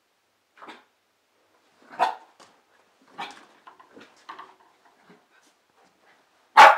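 Pembroke Welsh Corgi puppy barking at a fitness ball: about five short barks spaced a second or more apart, the loudest near the end.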